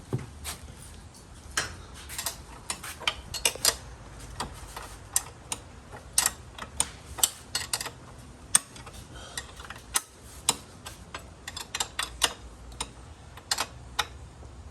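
Hand tools working on a four-wheeler's tie-rod bolts: a long run of sharp, irregular metallic clicks and clinks, like a ratchet wrench and sockets on metal, with a few louder clicks among them.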